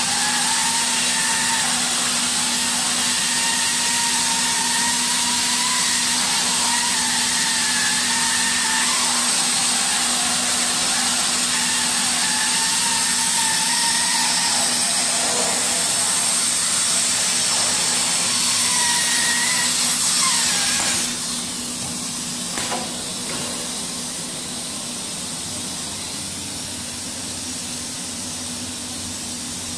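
DR-T300A PVC hot-air welding machine running as it welds PVC fabric into a cone: a loud steady hiss of hot air, with a low hum and a machine whine that wavers in pitch. About two-thirds of the way through, the whine stops and the hiss drops lower, followed shortly by a single knock.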